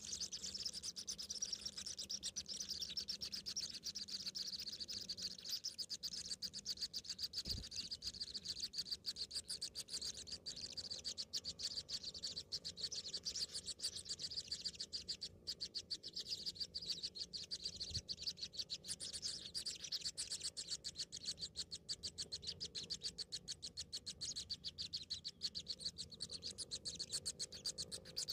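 Nestlings begging: a continuous, very fast, high-pitched chirring that holds steady throughout, with a faint low knock twice.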